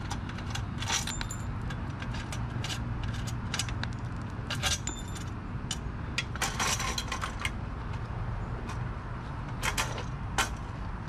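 Light metallic clinks and rattles from an aluminium beach cart's frame and its loosened axle nuts being handled as the carriage is lifted off the axle. There is a longer rattle about six seconds in and two sharp clinks near the end, over a steady low background hum.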